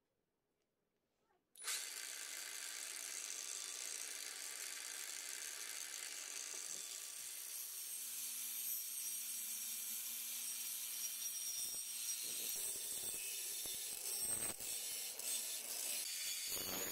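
Cordless angle grinder spinning a hard-drive platter as its cutting disc: switched on suddenly about a second and a half in, then running at full speed with a steady high whine. Over the last few seconds the platter bites into a painted square metal tube, adding a rough, uneven grinding noise.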